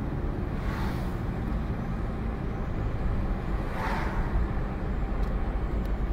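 Car driving along a town street, heard from inside the cabin: steady engine and tyre rumble on the road, with a brief swell of road noise about four seconds in.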